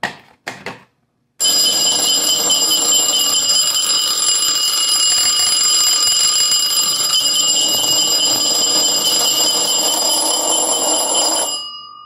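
A few short handling clicks as the smoke detector is pulled off its base, then a Simplex 4080 4-inch vibrating bell rings continuously as the fire panel's trouble signal, set off by the open circuit. The ringing starts about a second and a half in and dies away near the end.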